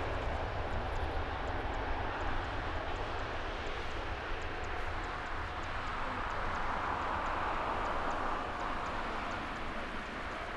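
Jet engines of an Airbus A350 at high power as it rolls down the runway: a steady rumbling roar that swells a little past the middle and eases slightly near the end as the aircraft draws away.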